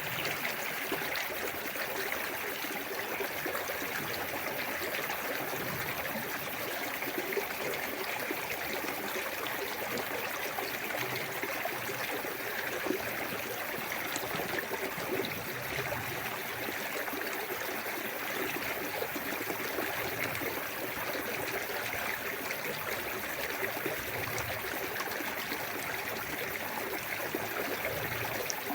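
Small waterfall on a clear woodland stream, water running and splashing steadily.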